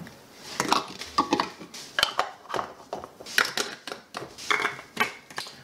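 Metal screw caps being put back on and turned onto hydrogen water bottles: a string of short clinks and scrapes, a few of them ringing briefly.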